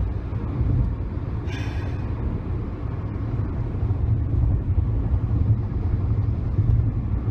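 Car road and engine noise heard inside the cabin while driving: a steady low rumble. One short hiss comes about one and a half seconds in.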